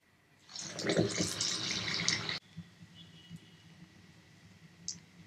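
Hot oil sizzling as a ball of urad dal batter for garelu (vada) is dropped into it. The sizzle lasts about two seconds and cuts off abruptly, leaving near-quiet.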